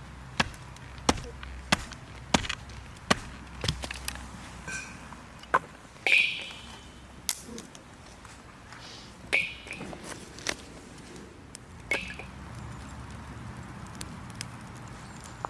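A series of sharp knocks: six evenly spaced strikes in the first few seconds, then scattered single knocks, a few with a short high ring.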